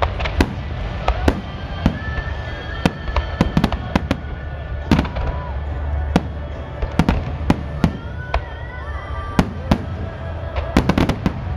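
Aerial firework shells bursting in a rapid, irregular series of sharp bangs, sometimes several close together, over a steady low rumble.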